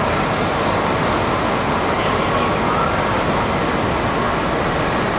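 Steady railway station platform ambience: a constant wash of noise from trains and station machinery, with background voices and faint, wavering tones.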